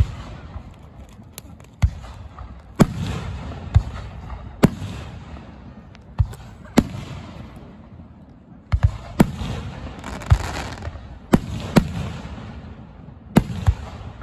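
Aerial fireworks shells bursting overhead: about a dozen sharp bangs at irregular intervals, some of them deeper, duller thuds, with a crackling hiss trailing several bursts.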